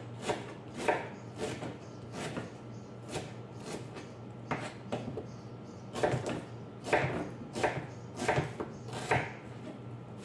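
Kitchen knife slicing a red onion on a plastic cutting board: a run of short knocks of the blade on the board, about two a second and unevenly spaced.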